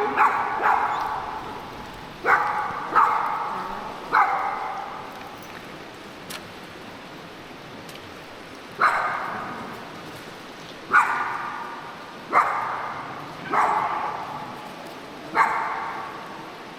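A dog barking about ten times in irregular bursts, each bark trailing off in a long echo, over a steady rush of background noise.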